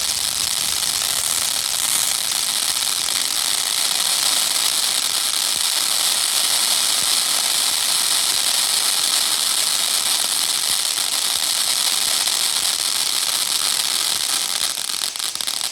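TNT Centennial XL consumer firework burning with a steady hiss and dense, fast crackling.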